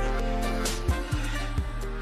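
Background music: held chords over a deep, regular kick drum.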